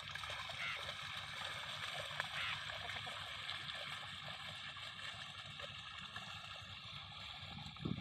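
Muddy water sloshing and splashing as a pair of bulls drag a wooden plank leveller (suhaga) through a flooded rice paddy, over steady background noise.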